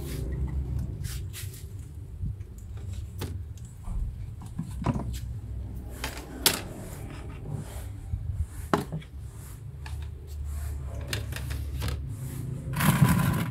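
Scattered knocks and clatter of plastic crate cages, wooden-framed lids and a plastic bucket being handled, with a longer, noisier scrape near the end.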